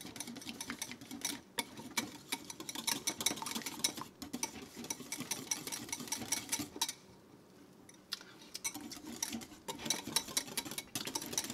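Wire whisk beating a ketchup glaze in a ceramic bowl: a rapid run of wire clicks and scrapes against the bowl. It pauses for about a second a little past halfway, then starts again.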